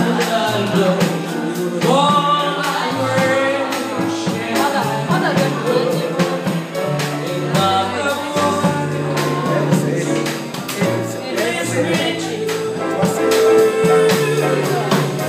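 Live small band: a woman singing a melody into a microphone, backed by piano, bass and a drum kit keeping time on the cymbals.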